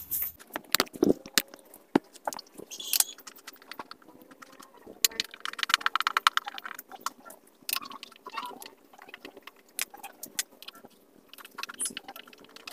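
Hand screwdriver backing out the mounting screws of an 8-inch subwoofer driver from its box: scattered small metallic clicks and scrapes, with a run of rapid ticking about halfway through.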